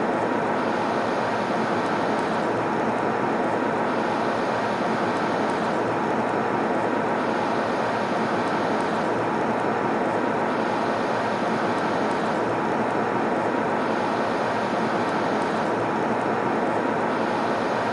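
Steady airliner cabin noise in flight: an even rushing hiss from the engines and airflow, with a faint steady hum in it and a slight, regular swell in the hiss about every second and a half.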